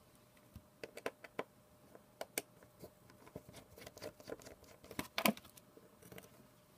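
Small irregular clicks and taps of a precision screwdriver and fingers working tiny screws out of a tablet's speaker mounting, with a louder cluster of clicks about five seconds in.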